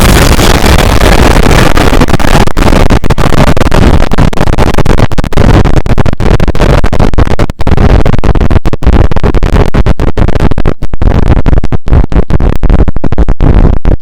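Heavily distorted, extremely loud noise filling every pitch: the 'meltdown' climax of a particle-accelerator meme sound effect. It is broken by brief stutters and dropouts that come more often toward the end, then cuts off abruptly.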